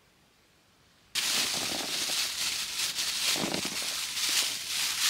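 A dense crackling, rustling noise that starts abruptly about a second in and carries on steadily.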